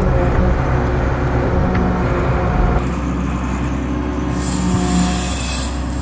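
Volvo TD61ACE six-cylinder turbo-diesel of an Åkerman H7Mc wheel excavator running steadily under load as the machine pushes snow with its bucket. It is heard first from inside the cab, then, after a sudden change about three seconds in, from outside the machine.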